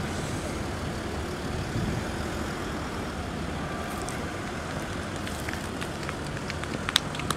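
A hearse and black Jaguar XJ cars passing close by, a steady road and engine noise, with a couple of sharp clicks near the end.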